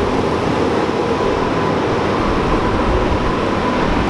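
Steady, loud rumbling noise with a faint held tone running through it.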